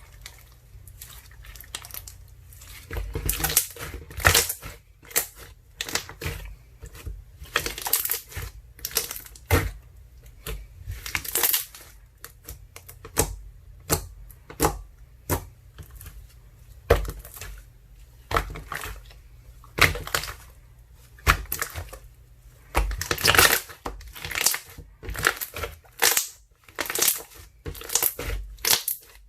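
Water jelly slime, an ice slime mixed with tangerine soothing gel, being squeezed and pressed by hand. It gives irregular crunchy crackles and squishes, sometimes several in quick succession.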